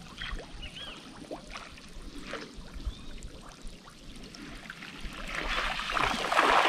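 Water splashing and streaming, with a few faint high chirps early on, then a loud rush of water that builds from about five seconds in and peaks near the end.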